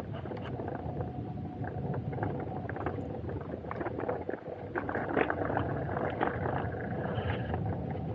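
Rumble and rattle of riding over rough ground, with wind on the microphone and a steady scatter of small clicks and knocks.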